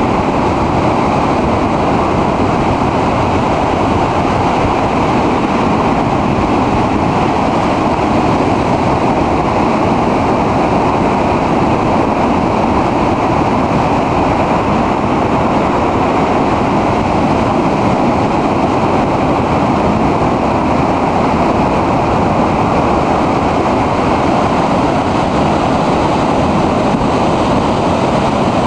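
Heavy storm surf: large waves breaking over rocks and a concrete pier, a steady, loud wash of rushing water.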